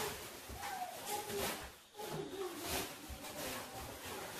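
Fabric carry bag rustling and scraping in a series of short bursts as it is pulled and adjusted over a folded camping chair.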